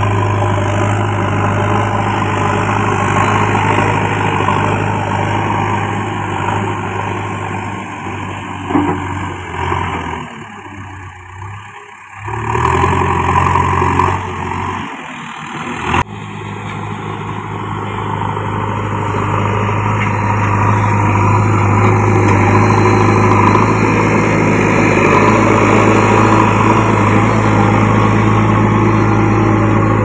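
JCB backhoe loader's diesel engine running under load as the machine pushes and levels soil with its front bucket. The engine drops quieter and uneven for a few seconds near the middle, then runs steady and a little louder through the second half.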